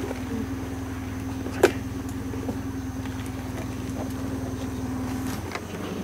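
The canoe's small outboard motor running with a steady low hum. Its sound drops and changes near the end as it slows. A single sharp knock comes about a second and a half in.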